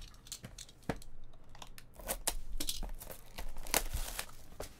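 Clear plastic shrink wrap being torn and crinkled off a 2018 Topps Tier One baseball card box: a run of sharp crackles and rustles, busiest in the second half.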